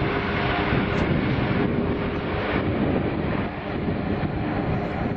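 Boeing 777 jet engines running loud during the landing rollout just after touchdown: a steady rushing noise with a deep rumble underneath.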